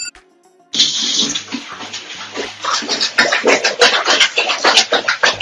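Water splashing and sloshing in a basin as a wet cat is bathed, starting about a second in after a short silence. From about halfway on, a run of quick sharp splashes or taps comes in, growing more rhythmic.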